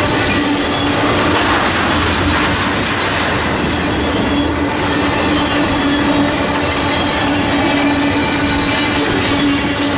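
Freight train of tank cars rolling past at close range: continuous wheel-on-rail rumble and clatter, with a steady low tone running under it.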